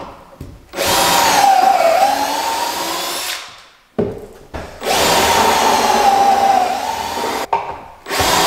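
Power drill running in two bursts of about three seconds each, its motor whine dipping in pitch as it bogs under load. A third burst starts at the very end.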